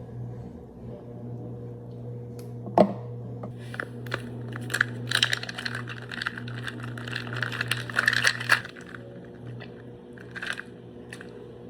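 Eating a salad bowl: a utensil knocks against the bowl with a short ring about three seconds in. Then come several seconds of crisp crunching and clinking as the food is forked up and chewed, over a steady low hum.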